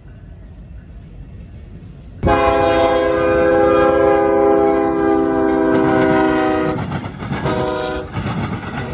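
Locomotive air horn on CSX 5313, a chord of several tones, sounding one long blast of about four and a half seconds, then a short blast, with a third starting near the end. Under it runs the low rumble of the intermodal train rolling by.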